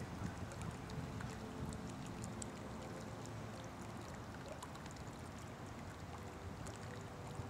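Water falling into a pond: a steady trickle with many small splashes and drips.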